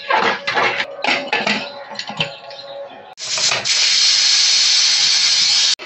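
A spoon stirring dal and water in a pressure cooker, with irregular scraping and sloshing. About three seconds in, this gives way to the pressure cooker whistling: a loud, steady hiss of steam venting under its weight for about two and a half seconds, which stops abruptly. The hiss is the sign that the dal is cooking under pressure.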